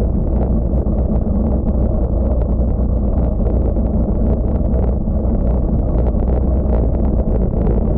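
Wind buffeting a bike-mounted camera's microphone, together with the tyre and road rumble of road bicycles riding at speed on asphalt: a loud, steady low rumble with faint ticks over it.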